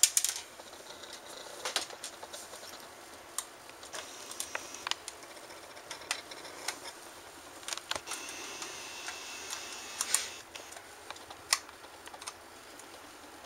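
Small screwdriver clicking and scraping against the screws and plastic shell of an Xbox 360 wireless controller as the screws are worked out, the screwdriver standing in for the proper T8 driver. Scattered light clicks, with a longer scrape about eight to ten seconds in.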